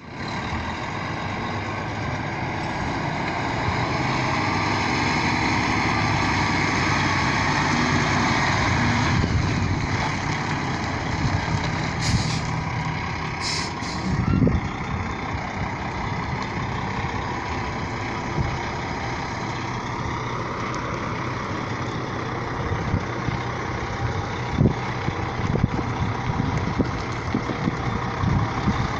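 Semi-truck's diesel engine running at low speed while the tractor-trailer maneuvers backward in an alley-dock exercise. Two short hisses of air partway through.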